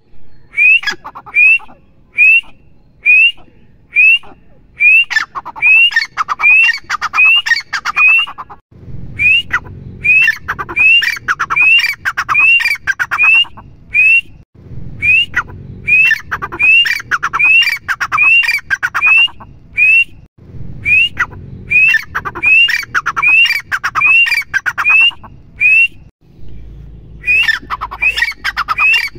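Grey francolin calling: a long series of loud, sharp, rising notes, about two a second, in runs broken by short pauses.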